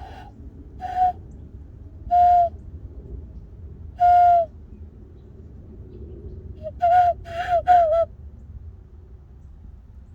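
A person hand-whistling bird calls through cupped hands: clear, hollow, owl-like hoots on one pitch. Four single hoots come a second or two apart, then a quick run of about four near the end, some dipping slightly in pitch.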